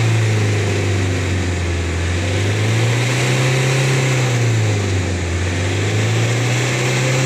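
Toyota Innova engine running at raised revs after a decarbonising service, heard at the exhaust tailpipe, to blow the loosened carbon out as black smoke. The revs sag at first, climb about three seconds in, drop again around five seconds, and climb once more near the end.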